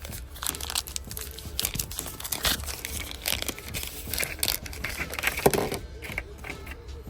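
Packaging crinkling and tearing as a small package is opened by hand, with irregular crackles and a sharper snap a little past five seconds in.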